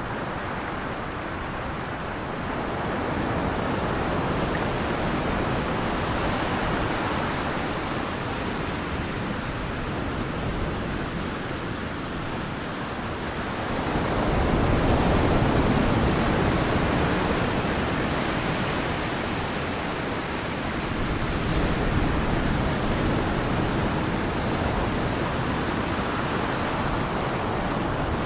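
Steady rushing water, a relaxing nature-sound background, slowly swelling and easing, loudest about halfway through.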